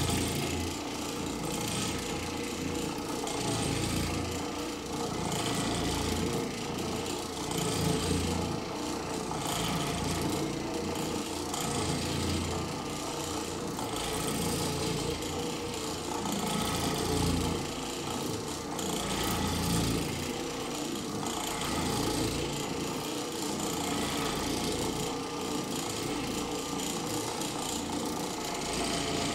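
Oreck Orbiter orbital floor machine running on carpet, its cotton pad scrubbing the pile with a steady vibrating hum. The sound swells and eases about every two seconds as the machine is worked over the carpet.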